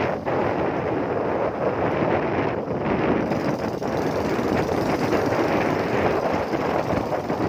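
Steady rush of wind buffeting the microphone over the running engine and road noise of a moving motorcycle.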